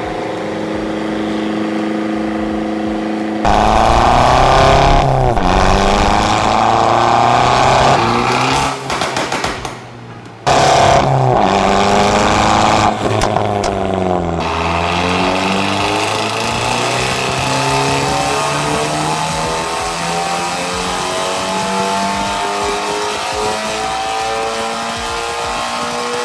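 Abarth 595's turbocharged 1.4 T-Jet four-cylinder, with a stage 3 TD04 turbo, stock manifolds and the exhaust valve open. It idles steadily at first, then is revved hard twice, the pitch dropping between the revs with a few sharp cracks. Over the last ten or so seconds the engine note climbs slowly and steadily in pitch.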